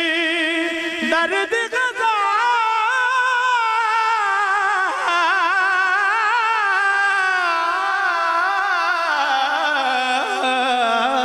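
A man singing a Punjabi devotional song (naat) into a microphone, drawing out the word "dard" into one long ornamented line with a wavering pitch that sinks slowly near the end.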